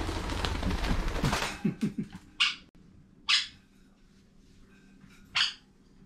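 A pet parrot giving three short, sharp squawks, the second about a second after the first and the third near the end, after a rustle of movement in the first second and a half.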